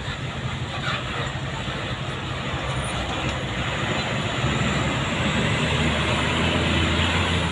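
Roadside traffic noise with the low engine rumble of a heavy vehicle growing louder from about halfway through as it approaches.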